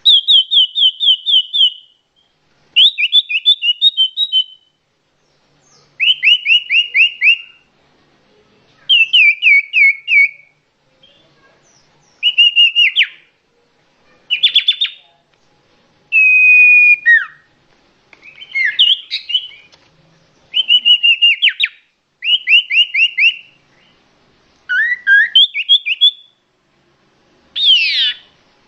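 A songbird singing loud, varied phrases, each a fast run of falling whistled notes lasting a second or two, with a short pause between phrases.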